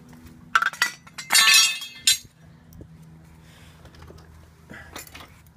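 Clinks and a rattling clatter of things being handled: a sharp knock about half a second in, a louder rattle lasting about a second from just past one second, and another knock near the end, over a faint steady hum.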